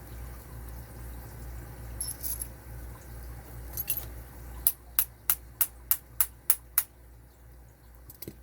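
Eight sharp metallic clicks in an even row, about three a second, from a tool working the screws of a padlock. A few fainter metal clicks come before them and a couple more near the end.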